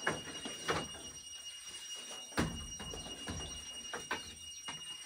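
Bamboo pole knocking and scraping against the wooden shelf frame as it is handled and fitted into place: several irregular knocks, the loudest about two and a half seconds in.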